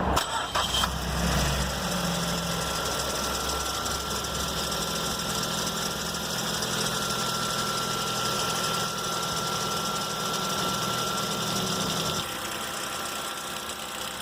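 2012 Ford Focus Duratec engine cold-started: it catches right away with a brief loud flare, then settles to a steady idle with a thin steady whine over it. This is the first start of the day, when the owner hears a noise that the shop traces to the harmonic balancer (crankshaft pulley).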